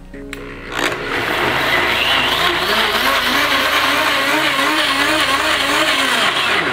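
Countertop blender running at high speed, blending shredded coconut and water into coconut milk. The motor builds up over the first second, runs steadily with a wavering whine, and winds down with a falling pitch at the end.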